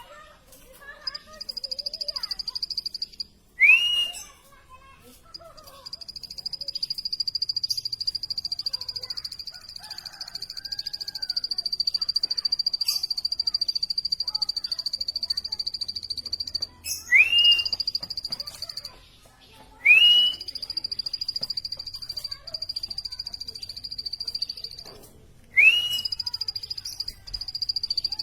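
Plain prinia singing: long, rapid, buzzy high-pitched trills lasting several seconds each, broken about four times by a short, loud note that sweeps upward.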